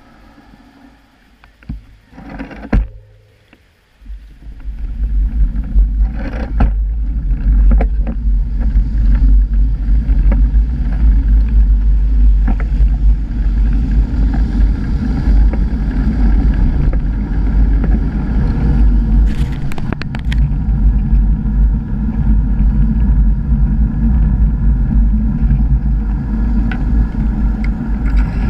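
Low rumble of wind and road vibration on a bicycle-mounted camera's microphone as the bike rides through city traffic. It starts about four seconds in, after a quieter stretch with a few short knocks.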